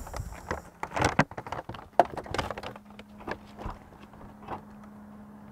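Footsteps on pavement and a paper bag rustling as it is carried, with a few sharp knocks and clicks, the loudest about two seconds in. A faint steady hum sets in about halfway through.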